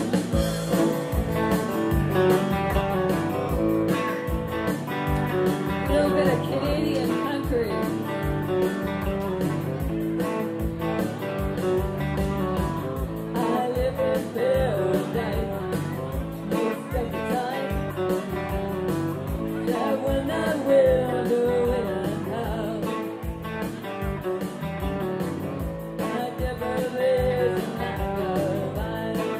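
Live blues-rock music: two electric guitars playing over a steady beat, with a woman singing.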